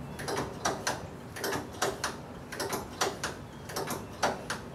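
Quick metallic clicks and squeaks in small groups, from the brake pedal and master-cylinder pushrod of a 1965 VW Beetle chassis being pumped over and over to bleed air out of the new disc brakes.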